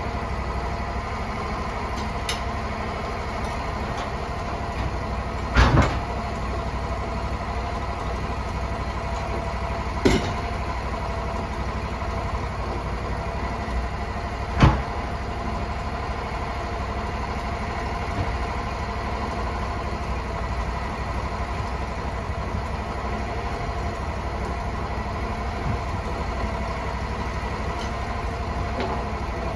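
Sawmill engine idling steadily, with a few sharp knocks now and then, the loudest about 6 and 15 seconds in.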